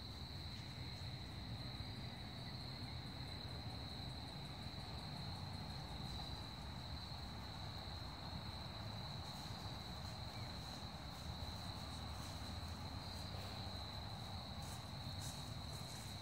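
Insects trilling on one steady high note without a break, over a faint low rumble. Faint crackling comes in during the second half.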